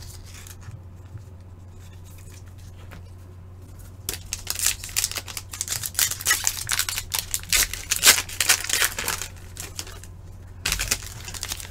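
Crinkling and rustling of a foil trading-card pack wrapper being opened and handled. It starts about four seconds in, goes on for some six seconds, and comes back briefly near the end, over a steady low electrical hum.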